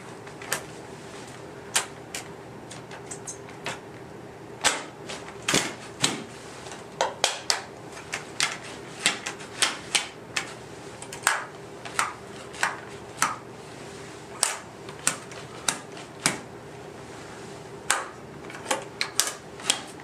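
Dynafit Radical ST tech binding worked with a ski boot: many sharp, irregular metal-and-plastic clicks and snaps, some in quick clusters, as the boot steps into the toe pins, the front latch is locked and the heel riser is flipped to set its height. A faint steady hum runs underneath.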